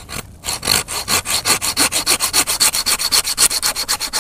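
Hand saw cutting through a wooden branch with fast, even back-and-forth strokes, starting about half a second in and keeping up to the end.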